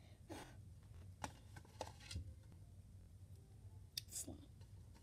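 Faint handling sounds: a few light clicks and a brief rustle as a plastic cup and glue bottle are handled, over a low steady room hum.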